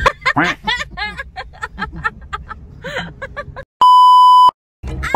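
A television 'no signal' test-tone beep sound effect: one steady high beep lasting under a second, starting and cutting off abruptly, about four seconds in. It follows a few seconds of fast, jumbled voice-like chatter.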